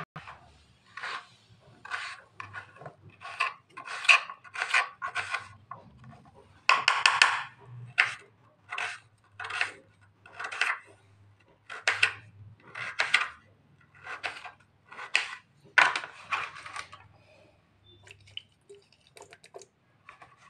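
Kitchen knife chopping raw potato into small cubes on a cutting board: a run of short sharp cuts, roughly one a second, with a couple of longer scraping strokes.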